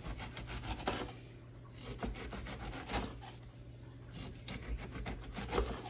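Serrated bread knife sawing through pineapple rind down to the wooden cutting board: a rasping made of many quick short strokes, with a few louder strokes along the way.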